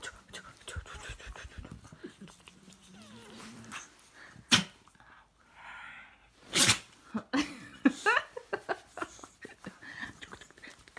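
A dog sneezing: two sharp sneezes a couple of seconds apart, the second the louder. A quick run of shorter snuffling noises follows.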